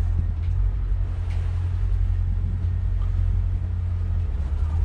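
Detroit Diesel marine engines of a large Hatteras motor yacht running steadily at low speed, a deep, even rumble.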